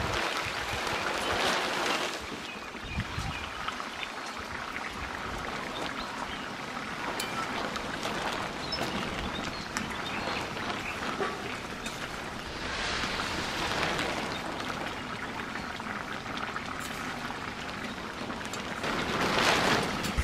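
Watery jackfruit and potato curry bubbling steadily as it boils in a metal pan, to cook the jackfruit through and reduce the water. It swells a few times as a metal spatula stirs it.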